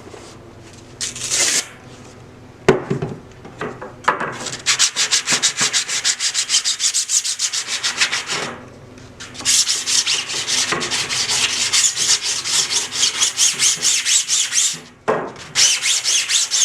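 Sandpaper rubbed by hand in fast back-and-forth strokes over a 3D-printed plastic sword blade patched with Bondo filler. There are three runs of quick, even strokes with short pauses between them, and a single sharp knock about three seconds in.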